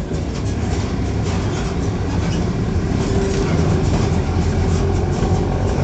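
Mercedes-Benz OF-1418 bus's diesel engine and exhaust running, a loud steady drone with a rattling noise over it.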